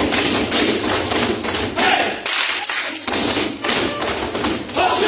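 Folk dancers' boots stamping on a wooden stage in a steady rhythm, about three strikes a second.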